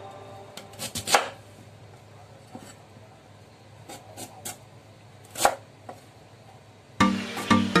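Kitchen knife cutting through a raw sweet potato and knocking on a wooden cutting board: a handful of separate chops, the loudest about one second and five and a half seconds in.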